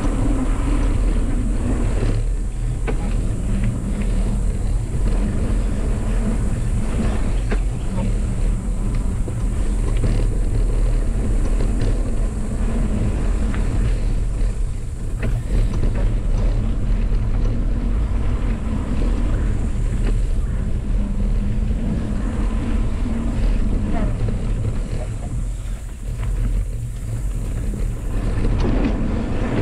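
Mountain bike rolling over a dirt trail, heard through a bike-mounted camera's microphone: a steady heavy rumble of wind and tyre noise, with many small knocks and rattles from the bike over roots and bumps.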